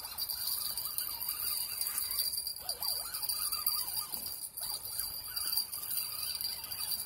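Steady, high-pitched chorus of night insects, with some faint wavering tones underneath.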